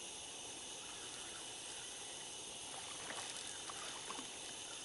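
Faint steady outdoor hiss of a still night while a fishing reel is cranked to bring in a small hooked catfish, with a few soft clicks about three to four seconds in.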